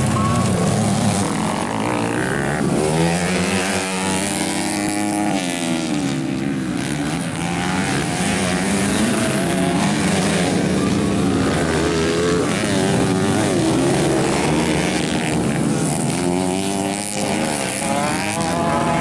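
Several motocross dirt bikes racing, their engines revving with the pitch repeatedly rising and falling as the bikes pass.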